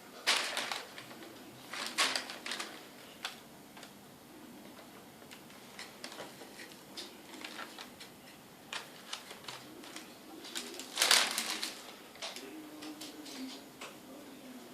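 Scattered clicks, taps and knocks of kitchen things being handled on a table while cookies are shaped, with louder clatters about a second in, at two seconds and around eleven seconds.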